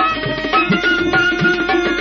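Instrumental interlude of Bengali folk music: a melody instrument plays a wavering, ornamented line over a steady beat of hand-drum strokes.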